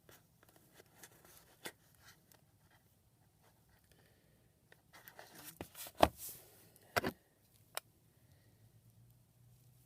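Faint handling noise of a cardboard box and its contents being unpacked: light rustling with scattered taps and clicks, the sharpest about six seconds in and two more about a second later.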